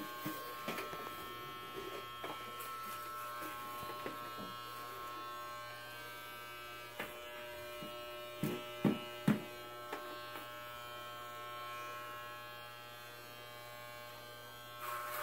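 Corded electric hair clippers buzzing steadily as they run, with three short, sharp knocks about eight and a half to nine and a half seconds in.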